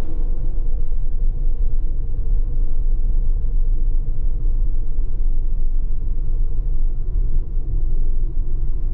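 Car interior noise while driving: a steady, loud, low rumble of engine and tyres on the road, with a faint steady hum running through it.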